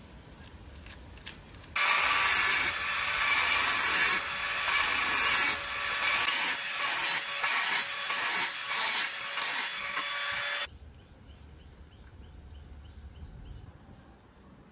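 A tool cutting into a homemade beyblade part: a loud, harsh, scraping noise with a steady high whine under it. It starts about two seconds in and cuts off abruptly some nine seconds later.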